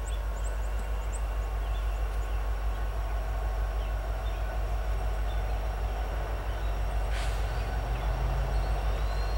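Steady low diesel rumble from an approaching slow coal train's lead locomotives, a pair of EMD SD70ACe units with two-stroke engines, still out of sight. Small birds chirp faintly at the start, and a brief hiss comes about seven seconds in.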